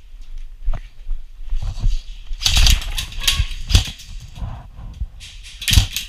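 Airsoft gunfire in close-quarters play: a run of irregular sharp snaps and knocks, bunched in two clusters, one a couple of seconds in and one near the end.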